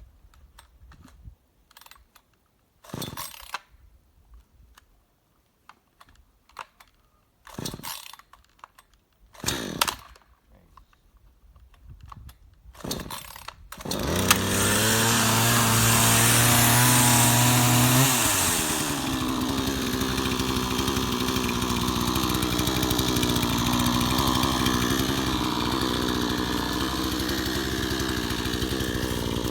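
Several short rasping sounds, then a PROYAMA 62cc two-stroke chainsaw engine starts about halfway in. It runs fast for about four seconds, then drops to a steady idle.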